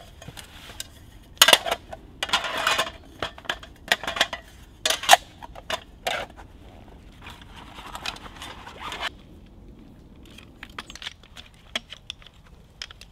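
A small metal folding camp table being taken apart and folded: a run of clinks, knocks and clatters from the metal top and legs, with a couple of longer scrapes. The handling sounds thin out to a few light clicks in the last few seconds.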